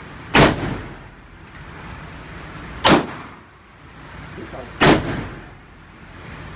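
Three single gunshots about two seconds apart, each followed by a short echoing tail, with fainter clicks in between.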